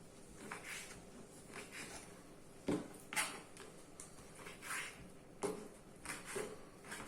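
Knife cutting raw beef into cubes on a cutting board: scattered soft taps and brief slicing strokes, with sharper knocks about two and a half and five and a half seconds in.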